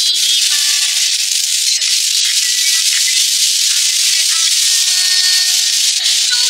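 Diced beef and potatoes sizzling steadily in hot oil in a stainless steel wok as they are stir-fried with a metal ladle. Faint background music underneath.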